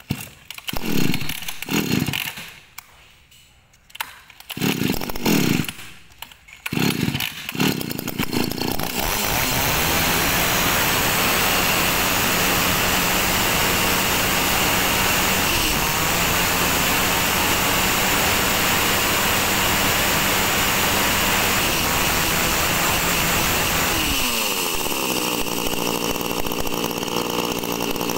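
Komatsu G36 36cc two-stroke chainsaw being pull-started: about five quick pulls on the starter cord, then the engine catches about nine seconds in and runs loud and fast. About three quarters of the way through it drops back to a steady lower idle.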